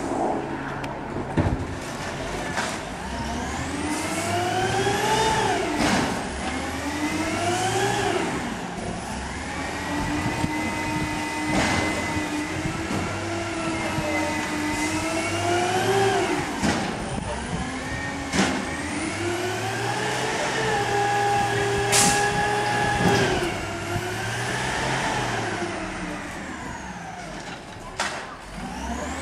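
Natural-gas garbage truck's engine revving up and falling back again and again, its pitch rising and dropping in long sweeps, with a few short, sharp sounds in between.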